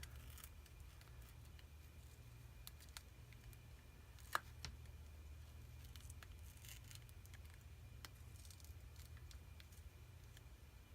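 Near silence: a low steady hum with faint scattered clicks as plastic prying picks work under a phone's glued back glass, one sharper click about four seconds in.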